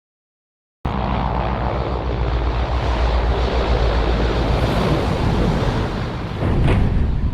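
Star Wars C-9979 Separatist landing craft landing sound effect: a heavy, steady engine rumble that starts about a second in and swells again near the end.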